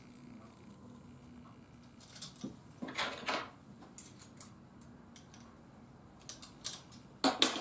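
Short metallic clicks and clinks of a hand-held ratchet rivet gun being handled as its nose piece is unscrewed and swapped for a smaller one. The clinks are scattered, clearest about three seconds in and in a quick cluster near the end.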